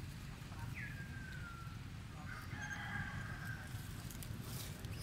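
Two faint animal calls over a low rumble: a short call gliding down in pitch about a second in, then a longer call held at one pitch around the middle.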